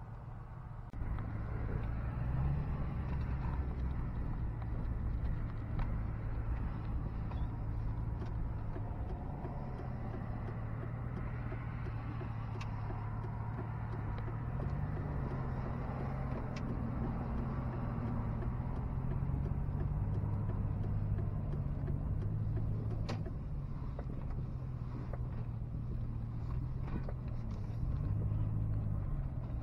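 Vehicle engine heard from inside the cab while driving slowly. A low, steady hum gets louder about a second in and rises briefly in pitch a few times as the vehicle speeds up.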